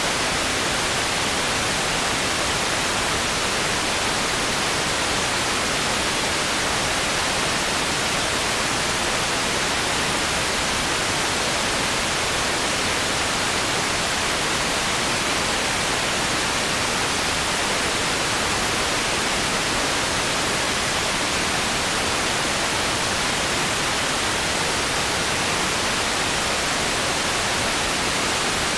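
Steady, even hiss of static noise with no other sound in it.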